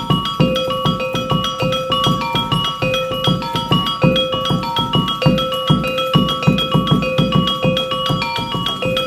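Gamelan-style street-show music: a looping melody of short struck metal notes over steady hand-drum beats.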